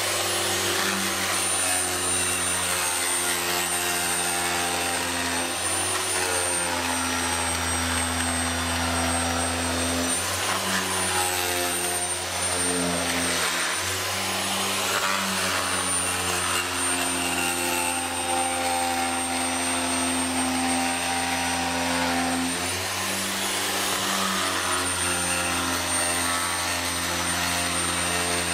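Festool TPE-RS 100 carpet remover running continuously, its oscillating blade scraping glued carpet residue off a screed floor. A steady electric-motor hum and buzz whose pitch shifts a little at times as the blade bites into the residue and eases off.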